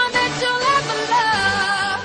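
Background music with a melody line that bends and wavers in pitch over held tones.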